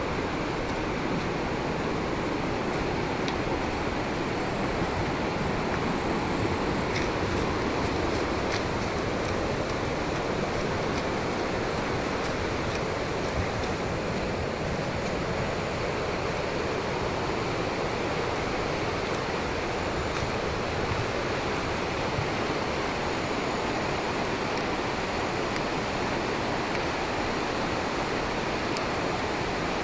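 Swollen, muddy floodwater of the Tuila river running fast: a steady, even rushing noise.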